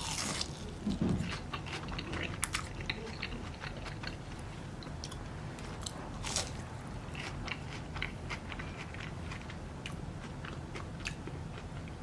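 A person biting into and chewing crispy fried cod nuggets, with crunches right through; the loudest come at the first bite and again about six seconds in.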